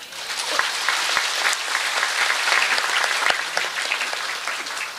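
Audience applauding: many hands clapping, building quickly at the start and thinning out near the end.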